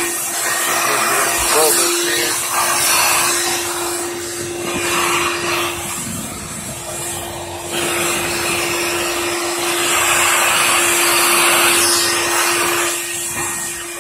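Vacuum cleaner running steadily with a constant motor hum, sucking through a ribbed hose as the nozzle is worked along a wall to pick up cockroaches. The rush of air swells and drops every second or two as the nozzle moves.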